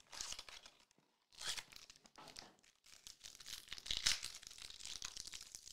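Trading card pack wrapper being torn open and crinkled, in irregular rustling bursts, loudest about four seconds in.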